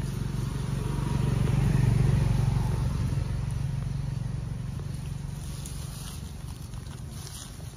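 A motor vehicle's engine droning, growing louder to a peak about two seconds in, then slowly fading as it passes.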